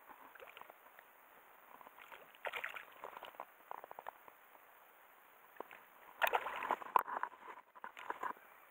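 Water splashing and sloshing in short, irregular bursts, mixed with small knocks and clicks. The loudest bunch of splashes comes a little past the middle, ending in a sharp click.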